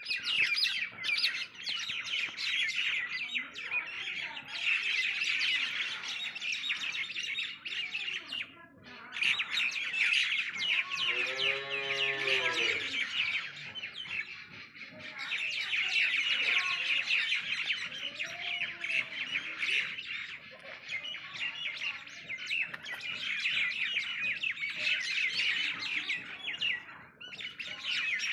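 Many small birds chirping and chattering continuously as a dense flock. About halfway through, a single drawn-out low call sounds over the chirping.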